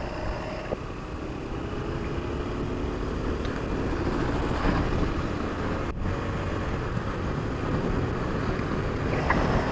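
Motorcycle engine running while riding, under a steady rush of wind noise on the microphone.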